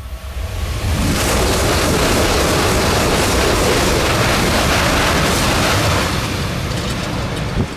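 E5-series Shinkansen bullet train passing close by at high speed: a loud rush of air and rail noise that swells about a second in, holds for about five seconds, then eases off near the end.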